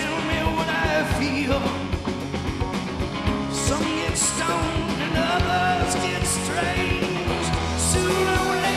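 A live rock band playing: electric guitar and a drum kit, with steady drum hits and cymbal crashes.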